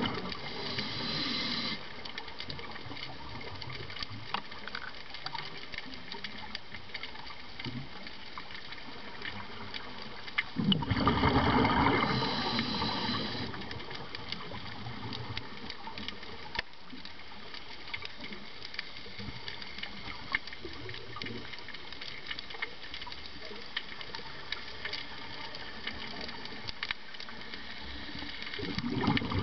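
Underwater recording dominated by a scuba diver's exhaled breath bubbling out of the regulator: a bubbling surge lasting two to three seconds at the start, another about eleven seconds in, and a third beginning at the very end. Between breaths there is a steady underwater hiss scattered with faint crackling clicks.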